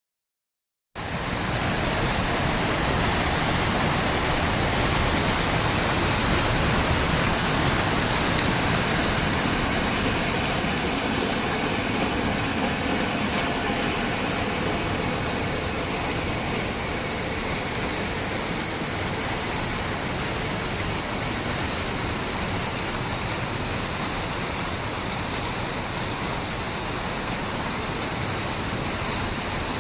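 Waterfall: a steady rush of falling water that starts about a second in.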